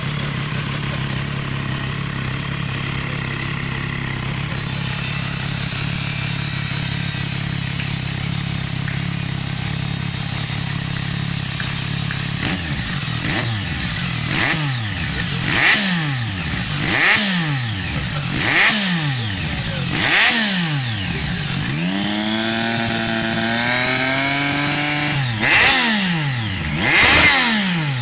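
Triumph Street Triple 675R's three-cylinder engine through a Hurricane aftermarket sport exhaust, idling steadily for about twelve seconds. It is then revved loud in a series of quick throttle blips, about one every second and a half, with one longer rev held for a couple of seconds near the end.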